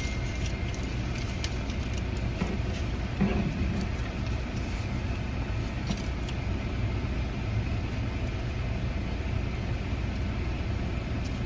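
Steady low rumble of motor-vehicle noise, with one brief louder sound about three seconds in.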